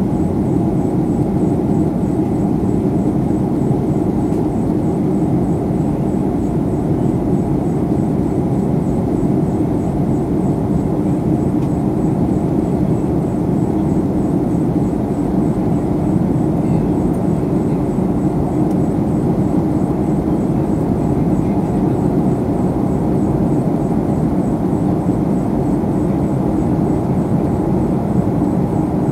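Steady cabin noise of a Boeing jetliner in flight: the even, unchanging rush of engines and airflow heard from a passenger seat.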